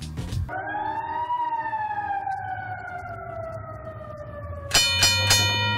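Sound effects: a siren-like tone that rises briefly, then slowly falls for about four seconds. Near the end a bell is struck three times in quick succession and rings on; the bell is the loudest part.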